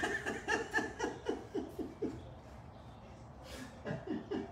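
A person laughing in a run of short "ha" bursts, each falling in pitch, about four a second for roughly two seconds, then a few more bursts near the end.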